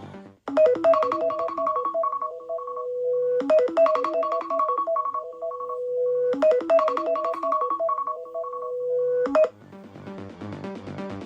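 Smartphone alarm alert tone: a short electronic keyboard melody ending on a held note, looping three times about every three seconds. Near the end it cuts off suddenly and a different alert tone begins.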